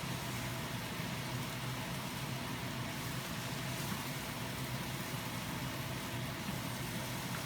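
Steady, unchanging low hum with an even hiss over it, a machine running at constant speed.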